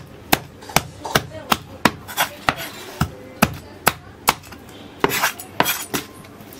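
A long knife blade scraping and knocking along a reef cod on a wooden cutting board in quick, even strokes, about two a second, as the fish is scaled.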